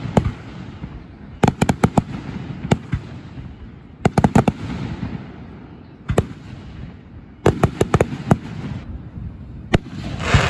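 Aerial fireworks shells bursting in sharp bangs, some single and some in quick runs of three or four, with a rumble trailing between them. A rushing hiss comes near the end.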